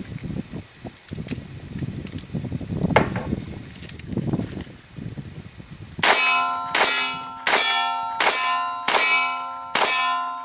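Six sharp metallic clangs about 0.7 s apart, starting about six seconds in, each ringing on with the same steady tones. They are six double-action shots from a revolver ringing a steel target, and every primer fired.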